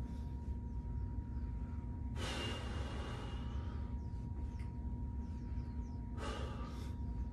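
A person breathing out heavily twice during an exercise: a long, slightly whistling exhale about two seconds in and a shorter one near the end. Under it runs a steady low rumble with a faint steady hum.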